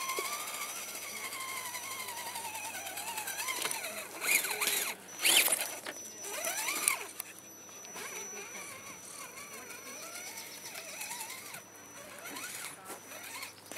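Electric motor and gear drivetrain of a scale RC crawler truck whining, the pitch rising and falling with the throttle. A few louder noisy bursts come around four to seven seconds in, and the whine is fainter toward the end.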